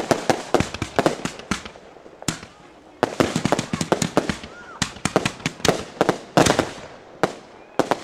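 Consumer fireworks cake (multi-shot repeater) firing a rapid, uneven string of sharp shots and bangs, in quick flurries with short lulls between them.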